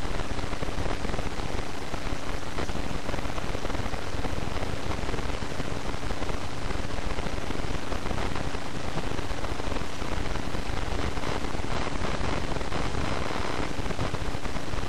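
Steady, even hiss with a faint low hum underneath.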